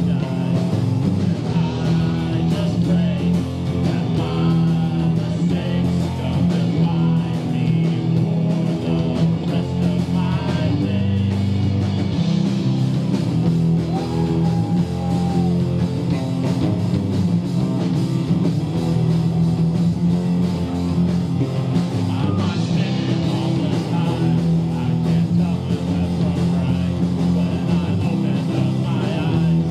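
Live rock band playing a song: electric guitars over drums, loud and continuous.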